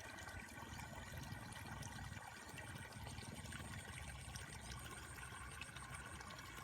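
Floodwater trickling and pouring steadily through a breach in an earth rice-field bank into the paddy below.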